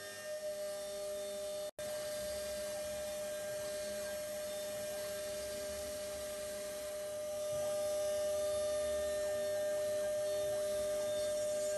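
CNC router spindle running with a steady whine over a background hiss. The sound cuts out for an instant just under two seconds in and gets slightly louder a little past the middle.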